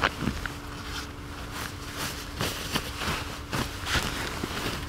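Sleeping bag and nylon tent fabric rustling as hands spread and arrange the bag inside a small tent, a string of short irregular rustles and soft crinkles.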